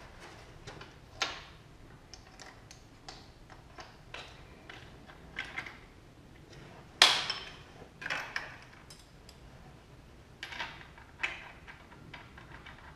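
Scattered clicks and knocks from tools and small metal parts being handled and set down, with one sharper knock about seven seconds in; the angle grinder is not running.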